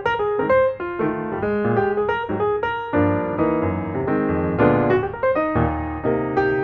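Piano music: a quick run of single notes, then fuller chords from about three seconds in.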